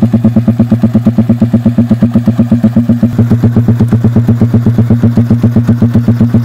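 Suzuki Raider 150's single-cylinder DOHC four-valve engine idling steadily, its exhaust giving a fast, even beat of about ten pulses a second.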